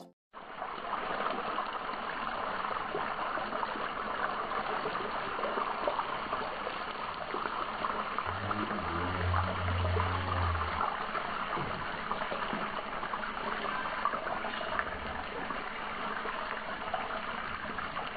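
Chicken pieces deep-frying in hot oil in a pot: a steady crackling sizzle. A short low hum joins it about halfway through.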